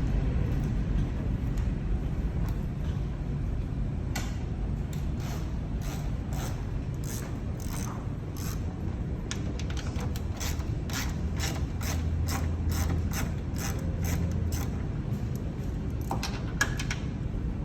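Regular mechanical clicking, about two to three clicks a second, that starts about four seconds in and stops near the end, over a low steady hum.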